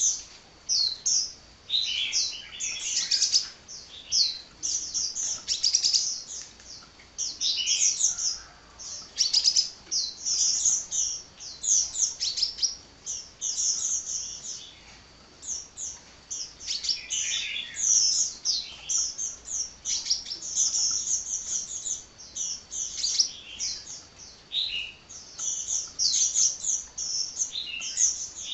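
Sunbird singing in rapid runs of high, thin chirps and trills, nearly nonstop with only brief pauses.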